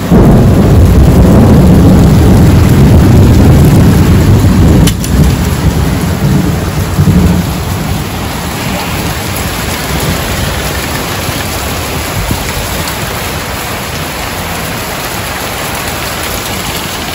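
Thunder rumbling loudly over heavy rain for about the first five seconds, with a sharp crack near its end, then steady heavy rainfall.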